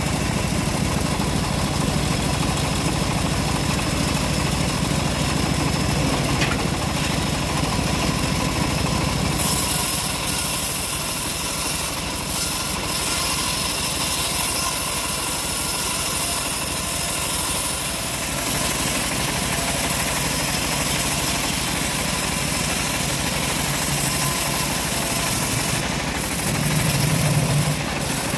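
Engine of a homemade bandsaw sawmill running steadily. A high hiss joins about a third of the way in and drops out near the end, where a louder low hum comes in.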